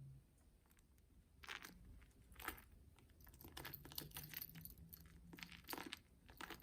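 Faint rustling, crinkling and scraping of packaging and a handbag being handled, in a string of short bursts starting about a second and a half in.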